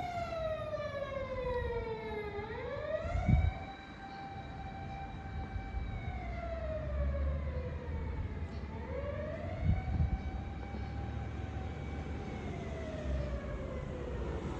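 A chemical fire engine's electronic siren on its normal setting, wailing in long slow cycles that fall and rise in pitch and hold at the top between sweeps, over a low engine rumble. Two brief low thumps, about three seconds in and about ten seconds in, are the loudest moments.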